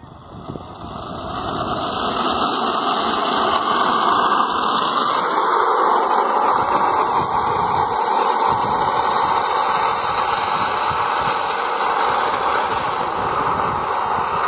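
Steel ball-bearing wheels of a wooden carrinho de rolimã rolling fast on asphalt: a continuous rough rumble that builds over the first couple of seconds as the cart picks up speed down the hill, then runs steady.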